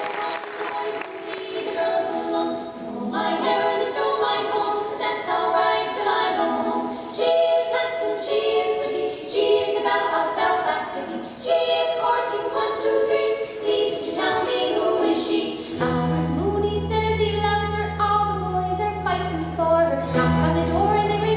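Music for an Irish jig dance: a melody of quick changing notes, with a steady low drone coming in about three quarters of the way through.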